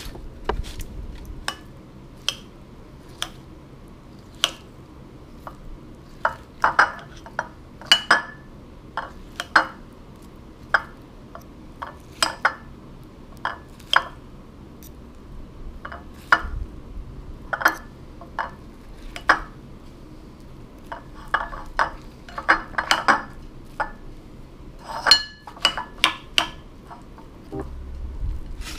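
Metal fork clinking and scraping against a ceramic plate while mashing baked sweet potato. The clinks are irregular and come now singly, now in quick clusters of several.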